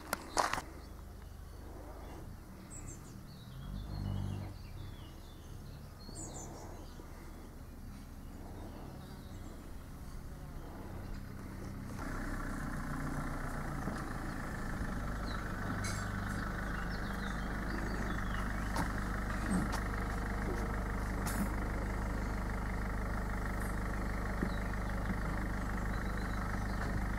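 Birds chirping faintly over a low hum. From about twelve seconds in, a steady motor drone sets in and keeps running, with the birds still heard above it.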